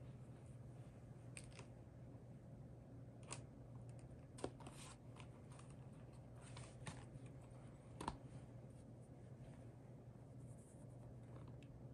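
A few faint, scattered clicks and taps of small plastic keyboard parts being handled and fitted during assembly, over a low steady hum.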